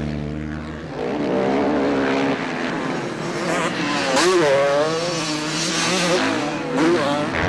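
250cc motocross race bike engines revving hard. The pitch climbs and drops again and again as the bike accelerates, shifts and backs off.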